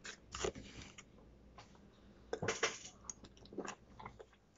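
A person biting and chewing crunchy food close to the microphone: faint, irregular crunches in small clusters.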